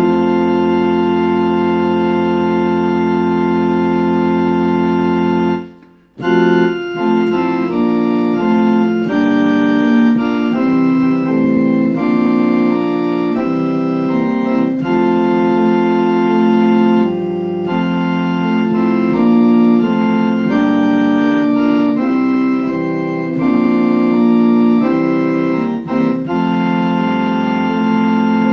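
Organ playing a hymn tune: a long sustained chord held for about five and a half seconds, a brief break, then a steady succession of chords for the rest of the time.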